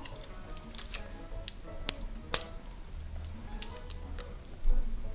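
Plastic wrapper being picked at and peeled off a plastic toy egg by fingers, with scattered sharp clicks and crinkles of fingernails on the plastic, over faint background music.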